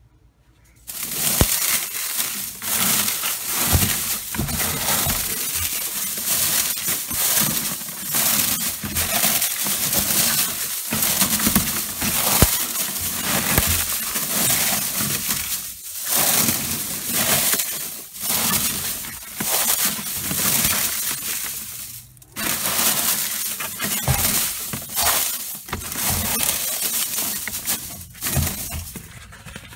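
Dry mustard seed pods and stalks crackling and crunching as gloved hands crush and break them apart, threshing out the seeds. The dense crackle starts about a second in and runs on, with two short pauses.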